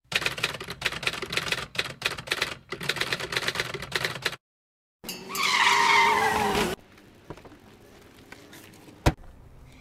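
Rapid typewriter key clatter, a typing sound effect, for about four seconds. After a brief gap comes a loud, slightly falling screech with hiss lasting about two seconds, then a single sharp click near the end.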